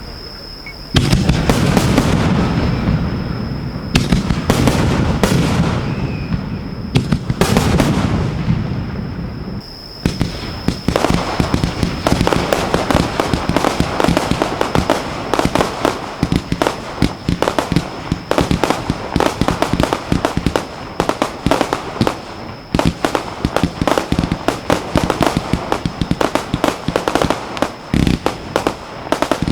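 Fireworks fired and bursting at close range. In the first ten seconds there are a few heavy booms, each with a long low rumbling tail. After that comes a dense, rapid run of sharp reports, several a second, to the end. A faint steady high whine runs underneath.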